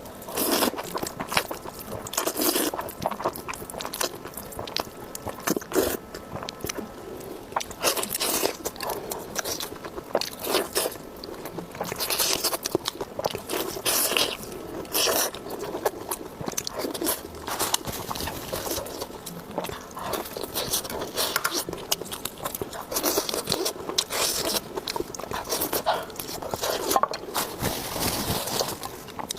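Close-miked eating: repeated crunchy bites and chewing, with irregular crisp crunches and mouth sounds following one another.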